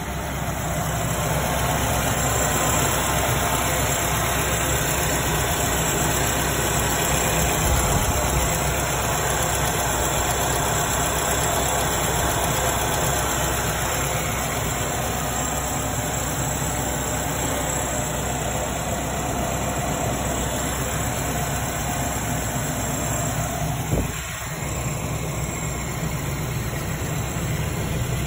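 Nissan Rogue SUV engine idling steadily, with its alternator and accessory drive belt turning. A single short knock sounds near the end.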